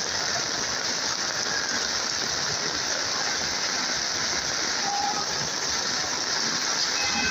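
Heavy rain pouring onto a flooded street: a steady, even hiss of rain falling on standing water.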